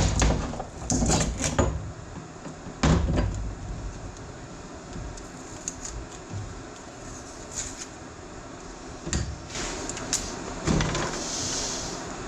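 Clunks and knocks of the tractor's steering valve parts being handled during disassembly: a cluster in the first couple of seconds, a louder knock about three seconds in, and a few more near the end.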